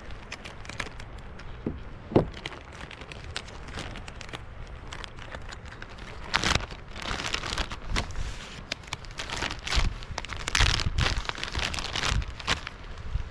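Plastic food packaging crinkling and rustling in irregular bursts as lunch is unpacked, with a single sharp knock about two seconds in.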